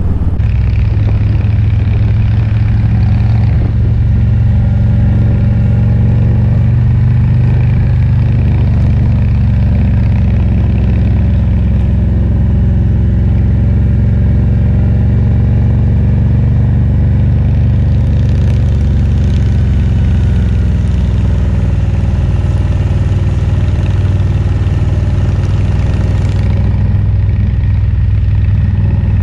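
Harley-Davidson Road Glide's V-twin engine running steadily under way, a loud low drone with road and wind hiss over it. A brighter hiss comes in for several seconds about two-thirds of the way through.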